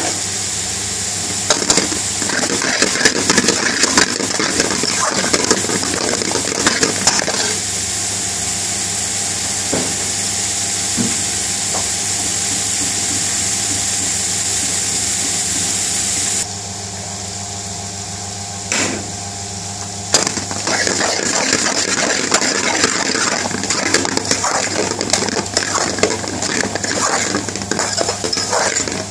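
Aubergine, onion and green chilli frying in a metal wok, sizzling steadily, while a metal spoon scrapes and stirs against the pan in spells. About halfway through the sizzle stops abruptly. Then the spoon's scraping and stirring pick up again for the last third, over a steady low hum.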